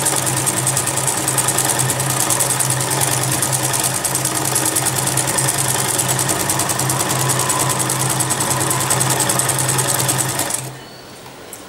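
Electric household sewing machine running at a steady speed, stitching a seam through fabric with a rapid, even stitch rhythm. It stops suddenly about ten and a half seconds in.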